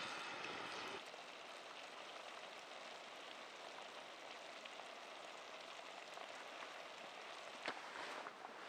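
Wood fire burning in a stacked-stone rock oven, then a quieter steady hiss with faint scattered ticks from glowing coals and a pan of vegetables cooking under the hot stone lid. A sharp click and a few footsteps on leaf litter come near the end.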